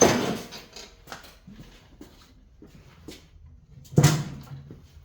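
Clunks and knocks of a small snowblower being tipped up and handled: a loud clatter at the start, small taps, and another heavy knock about four seconds in.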